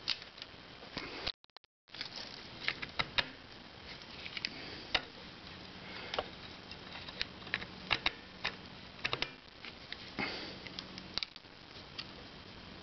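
Scattered light metallic clicks and taps as a hand tool works a clutch spring nut onto a threaded stud of a Harley-Davidson clutch hub. The sound cuts out briefly about a second and a half in.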